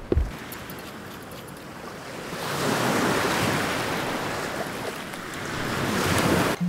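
Small waves washing onto a sandy beach, the surf swelling louder about two seconds in, with wind on the microphone. A short low thump right at the start.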